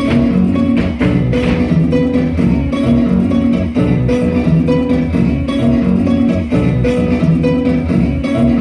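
Joropo dance music with plucked strings and bass, playing loudly at a steady, driving beat.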